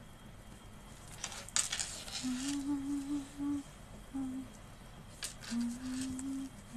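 A woman humming softly with her mouth closed, a few steady low notes in two short phrases. Rustling and handling noise comes just before each phrase.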